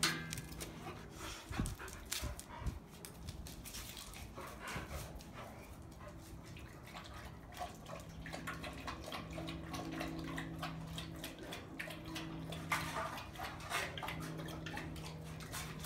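Dogs eating and lapping from metal bowls: irregular wet lapping and small clinks against the bowls. A steady low hum runs underneath for much of the time.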